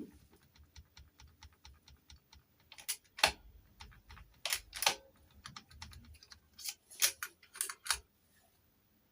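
Small metal clicks and ticks of a cut-down key blank being turned and worked in a Chubb detector lever lock, the levers pressing on the blank to leave impression marks. A run of fine rapid ticks gives way to a few louder, separate clicks, which stop about a second before the end.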